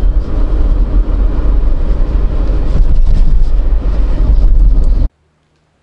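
Road and engine noise inside the cabin of a lowered Daihatsu Atrai kei van on the move: a loud, dense low rumble with clunks from the stiff, bottoming suspension. It cuts off suddenly about five seconds in.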